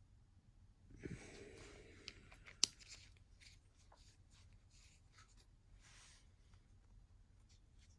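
Faint rustling and small handling ticks, with one sharp click about two and a half seconds in.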